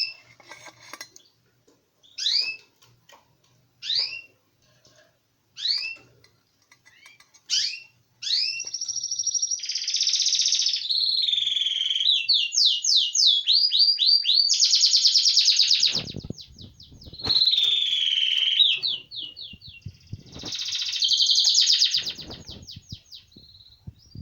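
A songbird calling with single upward-sweeping chirps about every second and a half, then breaking into a long, continuous song of fast trills and runs of rising notes.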